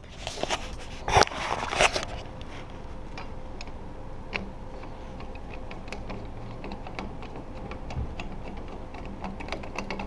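About two seconds of rattling and knocking as the lock hardware and door frame are handled. Then come scattered small clicks as a hand screwdriver turns a screw into the patio door lock's mounting bracket.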